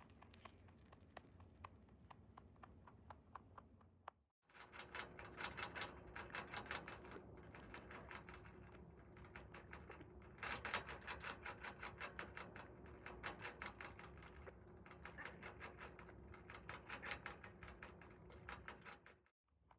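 Netherland dwarf rabbit chewing its food: a fast run of small crunching clicks, several a second, breaking off briefly about four seconds in.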